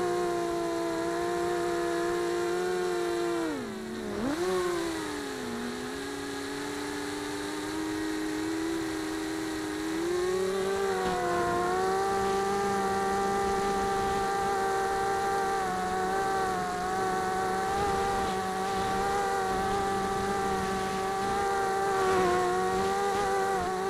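Four small brushless motors (Tiger MT1306-10, 3100kv) spinning 5x3 two-blade propellers on a mini H quadcopter, heard from the onboard camera: a steady buzzing whine. About four seconds in its pitch drops sharply and comes back up, and from about ten seconds in it rises and holds steady.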